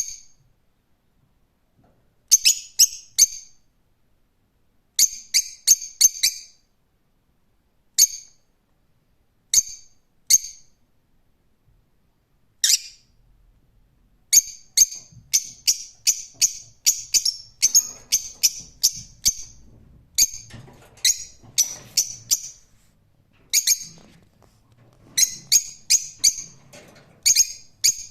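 Lovebird calling with shrill, high-pitched chirps. They come singly or in quick clusters of three to five with pauses between, then in a near-continuous rapid series from about halfway through.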